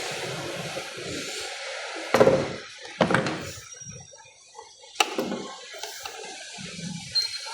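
Sealed plastic housing of a Starlink power supply being pried open with a tool: scraping and creaking, then sharp knocks about two, three and five seconds in.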